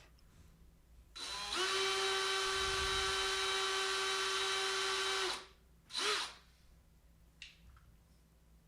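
Small drill boring a pilot hole into the centre of a rivet's manufactured head to drill out a badly set rivet. It spins up about a second in and runs with a steady whine for about four seconds, then gives one short burst a little later.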